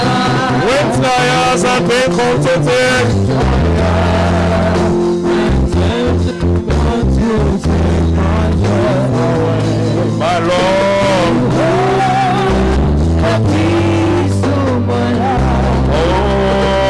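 Loud music: a heavy bass line holding notes in blocks under a melody that glides and bends in pitch.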